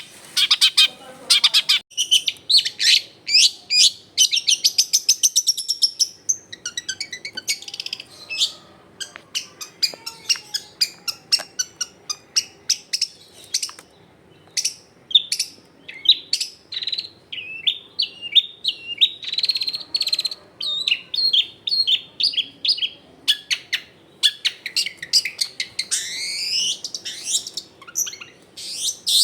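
Long-tailed shrike (cendet) singing a fast, varied song of short sharp chirps and whistled notes, with a quick run of sweeping notes near the end.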